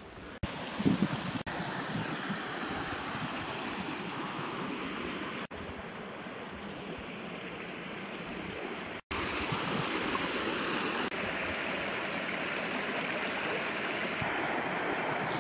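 Steady rush of a creek running over rocks. It breaks off abruptly a few times and comes back at a slightly different level.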